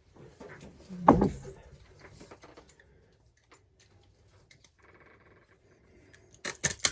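Knife cutting a cloth work glove: faint scraping and rustling, with a heavy thump about a second in and a few sharp clicks near the end.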